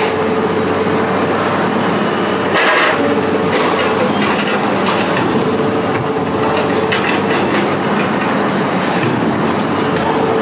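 Heavy diesel machinery running steadily while scrap metal clanks and scrapes, with a louder clatter about two and a half seconds in.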